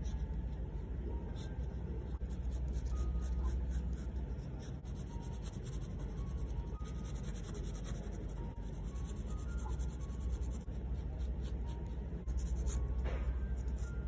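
Fountain pen nib scratching on textured watercolour paper: many short, quick hatching strokes in close succession.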